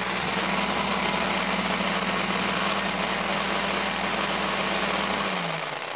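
Electric blender motor running with a steady whir. Its pitch drops as it winds down near the end. It is a sound effect laid over a wooden toy blender that makes no sound of its own.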